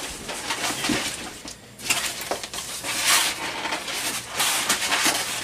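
Styrofoam packing pieces being pulled out of a cardboard box, scraping and creaking against each other and the box in short, irregular scratches, busier from about two seconds in: a horrible sound.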